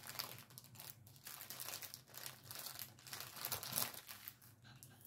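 Small plastic bags of diamond-painting drills crinkling as they are handled, a run of irregular rustles.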